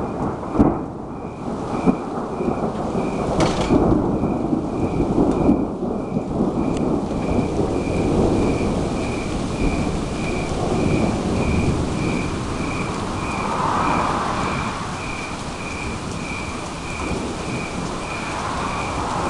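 Thunder rumbling long and low over steady rain, with a few sharp cracks in the first few seconds. A thin high chirp pulses evenly about twice a second behind it.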